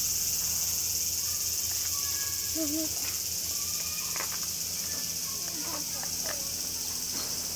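A chorus of cicadas drones steadily at a high pitch, with a few faint distant voices.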